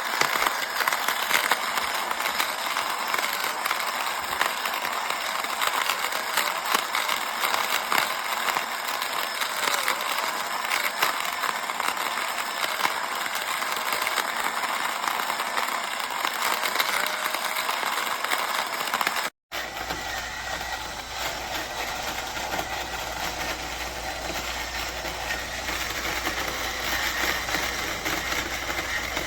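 Small electric ceramic-burr coffee grinder running and grinding beans, a dense crackle of fine clicks. It cuts off abruptly about nineteen seconds in, and a steadier mechanical whir with a low hum follows.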